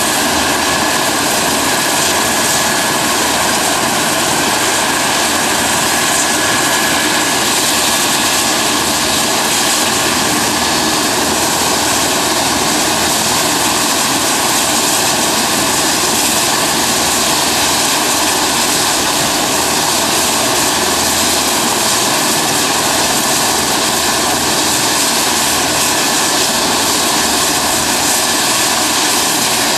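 Eurocopter EC135 helicopter running on the ground with its rotor turning: a steady rotor and twin-turbine noise with a high, even whine, holding level without rising or falling.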